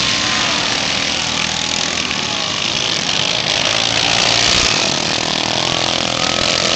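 Several racing lawn mower engines running together around a dirt track, their pitches rising and falling as they rev.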